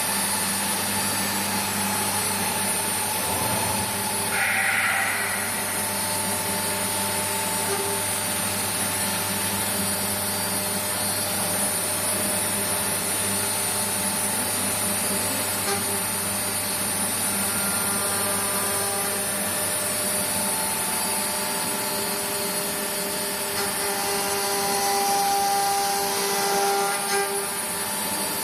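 Four-axis CNC router running: its air-cooled spindle spinning with a steady whine of several level tones over a machine hum as the tilted head moves over the workpiece. A brief higher hiss comes about four seconds in, and the sound swells slightly near the end.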